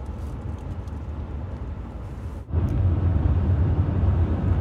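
Vehicle cabin noise: a low hum with a few faint clicks, then about halfway through a louder, steady rumble of engine and tyres from driving at highway speed, heard from inside the cab.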